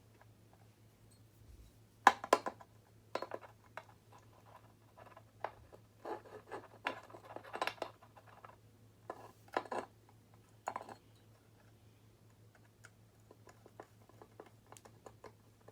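Small clicks and scratches of a wire being looped around a lamp socket's terminal screw and worked with a screwdriver to make it secure. The taps come in irregular clusters, the sharpest about two seconds in, and thin to light ticks near the end, over a faint steady hum.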